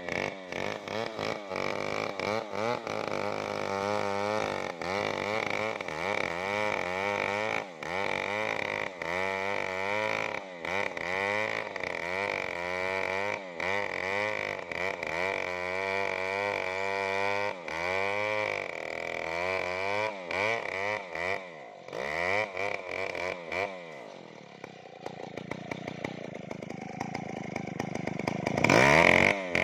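Stihl MS070 two-stroke chainsaw cutting into a tree, its engine pitch rising and falling over and over under load. Near the end the saw drops to a quieter, lower running, then a loud burst follows.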